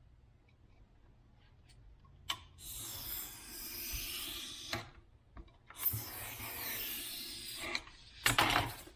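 A block of foam being shaped by hand: two long rasping strokes, each about two seconds, then a short harder scrape near the end.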